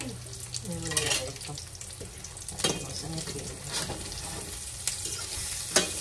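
Tostones (flattened plantain slices dipped in salt water) sizzling as they fry in a little oil in a stainless steel pan. Several sharp clinks of a metal spoon against the pan cut through the sizzle, about one a second, the loudest near the end.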